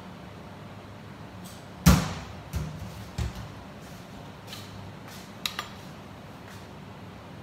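A stainless-steel kitchen cabinet door shut with a loud bang about two seconds in, followed by two softer knocks and, later, two quick clicks, over a low steady hum.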